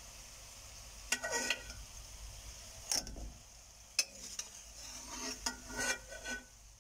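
Fried badusha being dropped into hot sugar syrup in a steel pot, with a steel ladle clinking against the pot several times over a faint steady sizzle.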